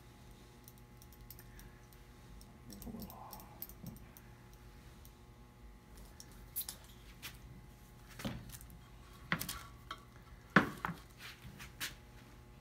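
Plastic bottle of Titebond wood glue being squeezed to lay beads of glue on a board: faint spluttering and clicks, then a few sharper knocks in the second half, the loudest about ten and a half seconds in, as the bottle is handled and set down. A low steady hum underlies it.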